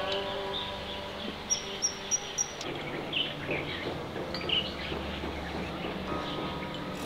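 Birds chirping with short, high calls over steady outdoor background noise. A sustained musical tone dies away in the first second, and another comes in near the end.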